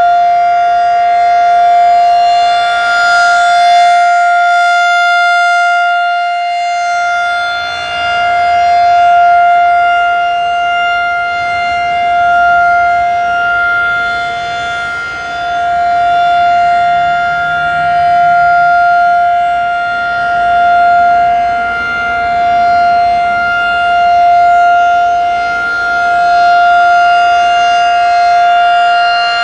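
Federal Signal 2001-SRN rotating outdoor warning siren sounding its steady alert tone at one unchanging pitch of about 700 Hz, its loudness wavering gently up and down.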